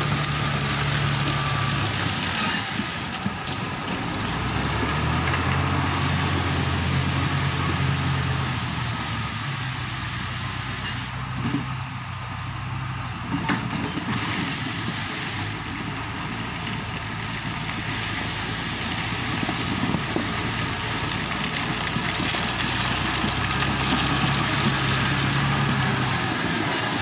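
Motor grader's diesel engine running close by as it spreads a load of rock with its blade, the engine note stepping up and down every few seconds with the load.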